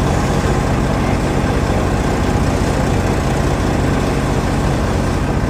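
A large engine idling steadily, a constant low hum under an even rumble.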